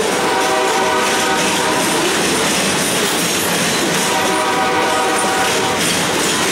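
Flatcars loaded with continuous welded rail rolling past, a steady rumble and rattle of wheels on track. Twice a held, many-toned pitched sound rises over it, each time for about a second and a half.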